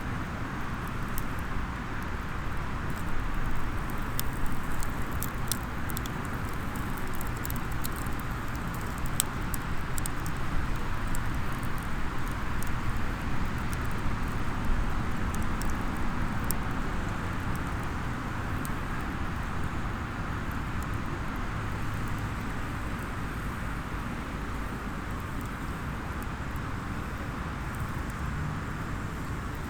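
Small campfire crackling, with sharp pops coming often in the first half and thinning out later, over a steady low rumble.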